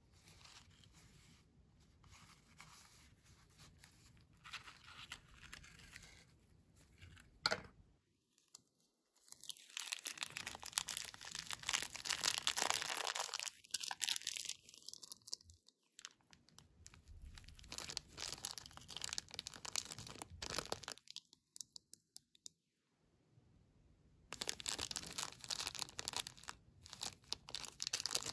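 Gloved hands handling a small cardboard toy box, then crinkling and tearing at a thin clear plastic bag of toy pieces: dense crackling rustle, soft at first and louder later, with a sharp click and two short pauses.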